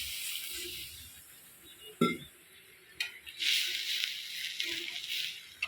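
Spiced masala with coarsely crushed peanuts sizzling in oil in a pan while being stirred, the hiss swelling and fading with each stroke. A metal spoon knocks against the pan about two seconds in and clicks again a second later.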